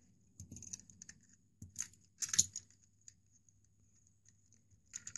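Plastic Lego bricks and minifigures clicking and rattling as the model is handled: a handful of short, scattered clicks and rustles, the loudest about two and a half seconds in.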